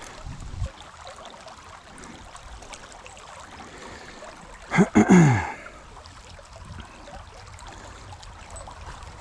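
Creek water running steadily, with a short vocal exclamation falling in pitch about halfway through.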